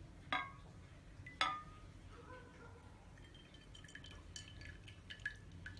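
A metal pan clinks twice against the rim of a glass dish, with a short ring. Then dissolved jelly pours from the pan into the glass dish, dripping with a string of light ticks.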